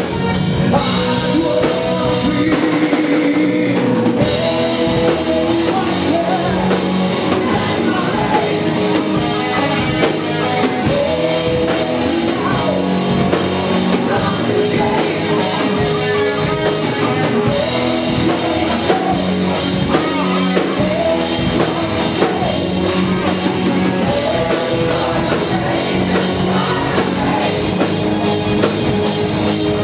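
Rock band playing live: drum kit and electric guitar, with a man singing lead vocals into a microphone.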